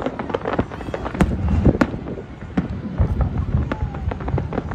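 Aerial fireworks bursting overhead: many sharp, irregular cracks and pops over a continuous low rumble.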